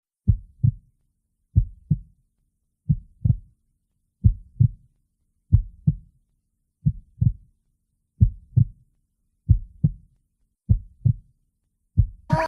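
Human heartbeat: slow, steady paired thumps (lub-dub), about one pair every 1.3 seconds. A short higher-pitched sound cuts in at the very end.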